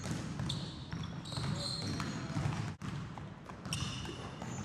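A basketball dribbled on a hardwood gym floor, with sneakers squeaking sharply several times as the player cuts and drives. The sound drops out briefly just past halfway.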